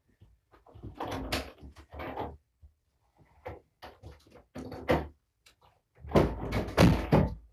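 Several bursts of knocks and bumps, the loudest cluster about six seconds in.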